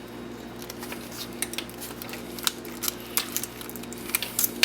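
Irregular small metallic clicks and taps of needle-nose pliers working the connector terminals out of a windshield wiper switch's plastic housing, with a sharper click near the end. A steady low hum runs underneath.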